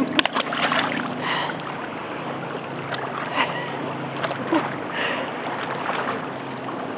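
Shallow seawater sloshing with small splashes from a child playing in it, over a steady wash of surf.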